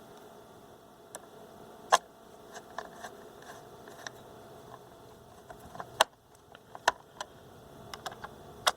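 Scattered light clicks and taps from handling a screwdriver and the plastic case of a small portable radio, irregular, with the sharpest about two seconds in and a few more between six and nine seconds.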